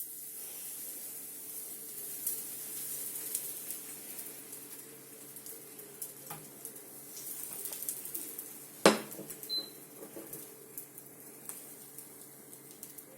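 Pancake batter sizzling in a hot frying pan, with scattered small crackles and light clinks of a utensil over a steady low hum. One loud sharp clank about nine seconds in.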